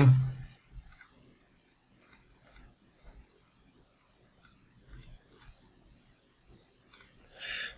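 Computer mouse clicking: about a dozen short, sharp clicks spaced unevenly, several in quick pairs like a button pressed and released. A soft hiss near the end.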